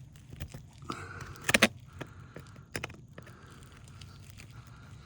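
Small pry bar working a roofing nail loose from under an asphalt shingle: scattered scrapes and clicks of metal on nail and shingle, the loudest a sharp double click about a second and a half in. The nail head begins to pull through the shingle as it comes free.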